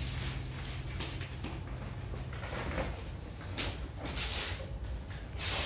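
Gift wrapping and packaging rustling and crinkling as a present is unwrapped, in several short bursts in the second half, over a low steady hum that stops about halfway.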